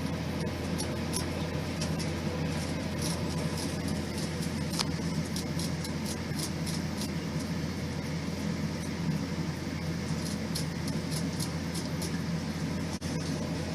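Quail chicks peeping, many short high chirps scattered throughout, over a steady low hum.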